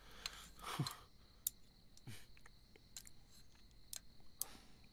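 Faint, scattered clicks of chopsticks against ceramic rice bowls and dishes during a meal, a few separate taps over several seconds.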